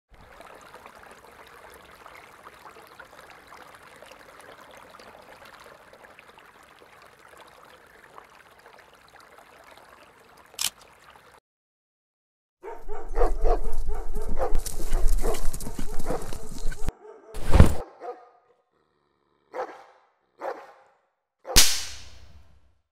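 Soundtrack of an animated short: a faint steady hiss for the first half with one short click, then from about 13 seconds a loud stretch of hunting dogs barking, followed by a few single sharp sounds, the last one the loudest.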